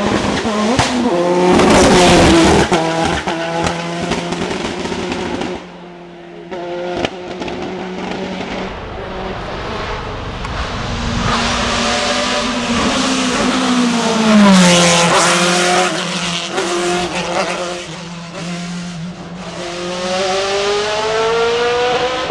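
Hill-climb racing car engine at high revs, its pitch climbing and dropping over and over through gear changes. It is loudest about two seconds in and again about fourteen seconds in, with a brief drop in level about six seconds in.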